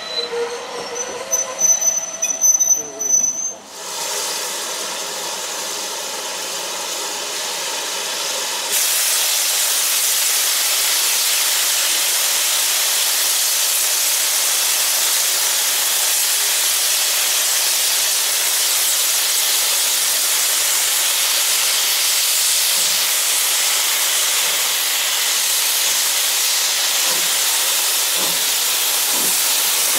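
Steam locomotive letting off steam in a steady, unbroken hiss that gets louder about nine seconds in and keeps going. High thin squealing tones come before it in the first few seconds.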